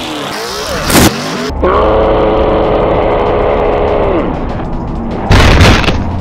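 Pickup truck crashing and flipping in a mud pit: a loud crash about a second in and another, longer one near the end. Between them a steady pitched tone is held for nearly three seconds and drops away as it ends.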